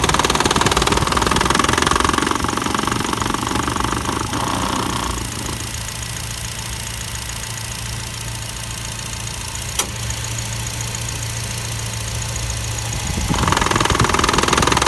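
Nissan Almera's engine idling with the radiator/air-con condenser fan running noisily, the sign of a failing condenser fan motor. The fan noise drops away about five seconds in, leaving a steady low hum and a single click, then comes back on near the end.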